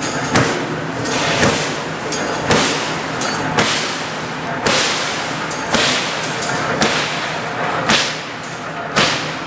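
A 25-ton deep-throat punching press striking about once a second, nine sharp strokes in a row, as the NC feeding platform indexes the workpiece between hits. A steady motor hum runs underneath.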